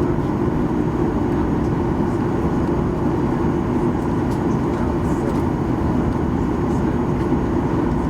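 Steady cabin noise of a Boeing 737-800 on the ground before takeoff: its CFM56-7B engines idling, with a constant low rumble.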